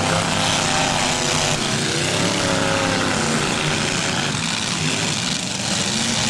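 Demolition derby cars' engines running under a steady, noisy din, with one engine's pitch rising and falling about two seconds in.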